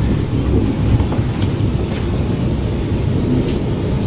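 Tram running along the track, a steady low rumble heard from inside the car.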